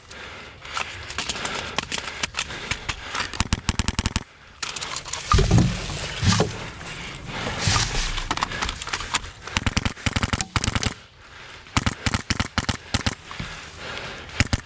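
Airsoft rifle firing rapid full-auto bursts of about a second each, several times with short gaps, as suppressing fire to keep an opponent pinned down. A couple of heavy low thuds come about five to six seconds in.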